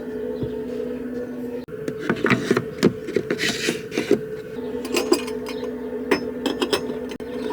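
Irregular clicks, knocks and clinks of objects being handled, over a steady mechanical hum.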